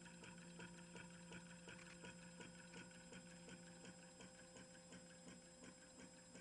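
Homemade nail-electromagnet electric motor running, its spinning rotor making a faint, even ticking of about four ticks a second as its contacts switch on and off, with a faint low hum that fades in the first half.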